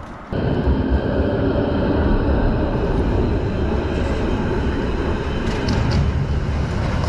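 Belgian Coast Tram (Kusttram), an articulated low-floor electric tram, passing close by: a loud, steady rumble of wheels on rails with a steady high whine over it, starting abruptly a moment in.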